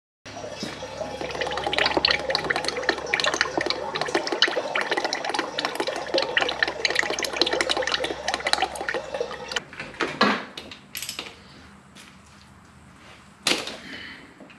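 Engine oil pouring out of a drain-plug hole of the Acura NSX's dry-sump lubrication system and splashing into the funnel of a standing oil drain. It dies down to a trickle about ten seconds in, and two short, sharp knocks come after it.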